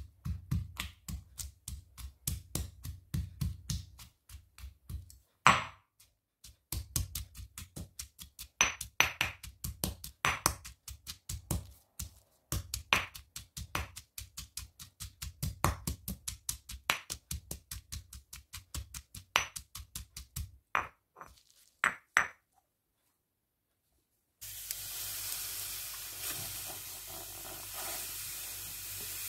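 Granite mortar and stone pestle pounding red chillies and garlic: quick, regular knocks a few times a second, with short breaks. The pounding stops about 22 seconds in. After a brief silence, a steady hiss follows as granulated sugar is poured into a stainless steel pot.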